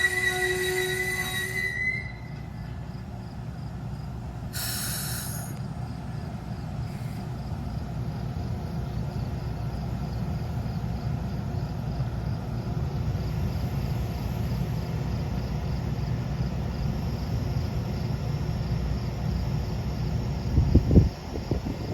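Amtrak passenger train's brakes squealing as it comes to a stop, the squeal cutting off about two seconds in. The diesel locomotive then rumbles steadily at standstill, with a short burst of air hiss a few seconds later and a few thumps near the end.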